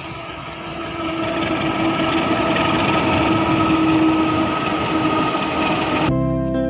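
Diesel-hauled Babaranjang coal train crossing a steel girder railway bridge: a dense rumble of locomotive and wheels with a steady whine, growing louder over the first few seconds. It cuts off suddenly about six seconds in, and music begins.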